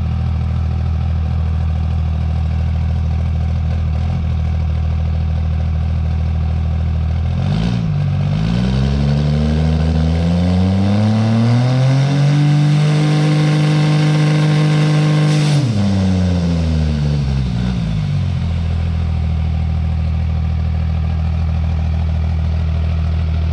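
Cummins inline-six diesel drag truck engine idling, then revved up about a third of the way in and held at high rpm for several seconds before dropping back to a steady idle.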